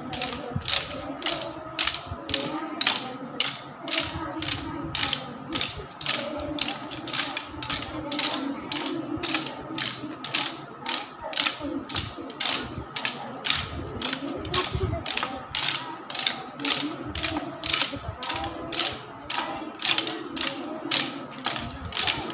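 Dancers' sticks clacking together in a steady rhythm, about two to three strikes a second, in a Santali stick dance.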